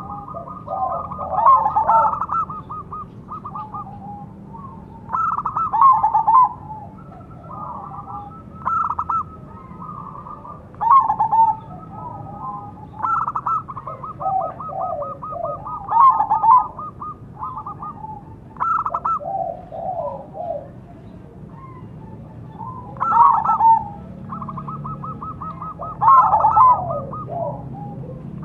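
Zebra doves (perkutut) cooing: phrases of quick staccato coos repeated every few seconds, a crossbred Bangkok-type perkutut calling and a local perkutut answering, at times overlapping at a lower pitch.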